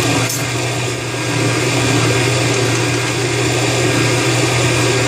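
Countertop blender motor running steadily, puréeing tomatillo salsa verde, with a steady low hum under the whirring; the sound dips briefly about a second in.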